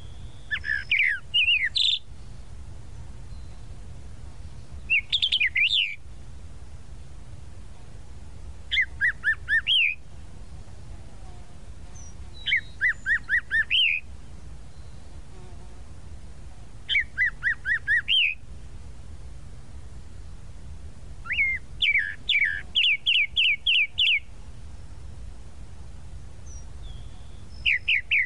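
Tropical mockingbird singing: short phrases of quickly repeated notes, a new phrase about every four seconds, over a steady low hum.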